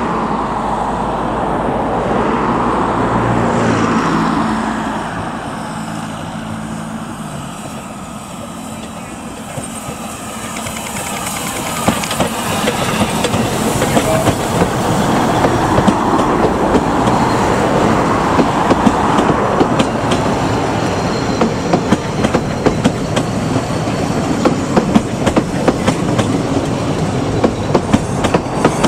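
A car drives past on the adjacent road about four seconds in, its engine note falling as it goes by. Then a narrow-gauge Double Fairlie steam locomotive runs slowly past close by, followed by its carriages, their wheels clicking over the rail joints.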